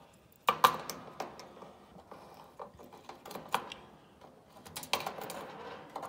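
A kerosene heater's metal fuel cap and its bead chain clicking and jingling against the tank as the cap is worked onto the filler opening to find where it drops into the threads. A sharp clack comes about half a second in, with lighter clicks and rattles scattered after it.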